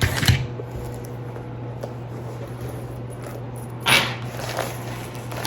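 A handbag being handled: a short rustle at the start and another about four seconds in, with a few faint clicks, over a steady low hum.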